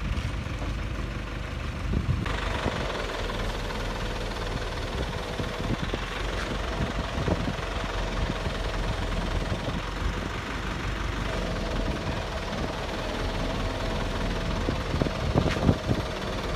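Truck crane's diesel engine running steadily while it works the boom, with a brighter, busier layer coming in about two seconds in. A few sharp knocks near the end.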